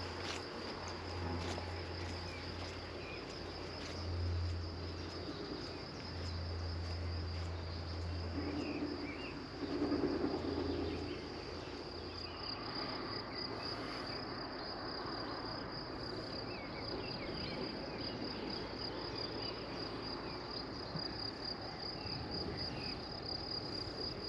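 Crickets chirping in a steady, high, pulsing trill. Underneath, a low rumble comes and goes, swelling briefly about ten seconds in.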